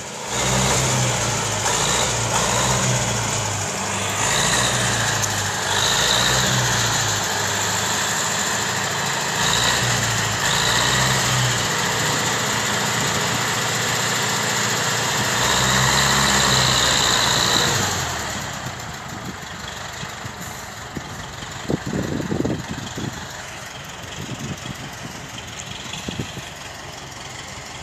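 Universal 650 tractor's four-cylinder diesel engine running, its pitch shifting up and down, then dropping to a quieter, steady idle about 18 seconds in.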